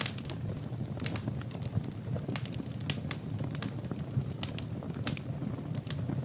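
Wood fire burning in a fireplace: a steady low rumble of flames with frequent sharp crackles and pops at irregular intervals.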